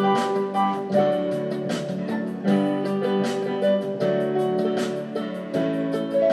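Instrumental introduction of a song: guitar and other instruments playing a melody over a steady beat, with no singing yet.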